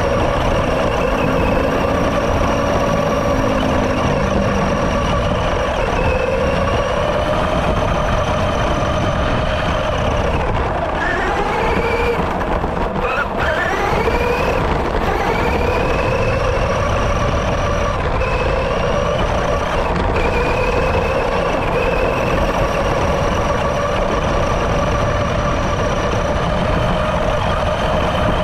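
Electric motor of an FTX Carnage RC truck whining as it drives, heard from a camera on its roof, with its pitch rising and falling with speed. About halfway through it drops and then climbs quickly again. A steady low rumble from the chassis runs underneath.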